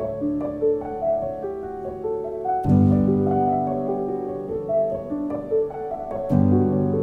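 Background music: a slow piano melody of held notes over sustained chords, with a new, fuller chord coming in about three seconds in and again near the end.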